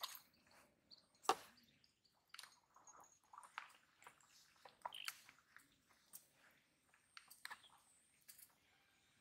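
Faint, scattered small clicks and soft wet squishing from hands working at a fishing hook and a freshly caught small fish, the sharpest click about a second in.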